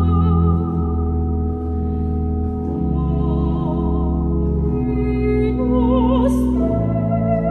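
Soprano voice singing long notes with wide vibrato over sustained pipe organ chords, with a brief hiss a little after six seconds.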